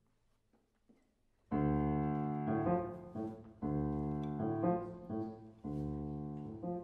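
Background music: after a moment of near silence, piano chords start about a second and a half in and are struck about once a second, each fading before the next.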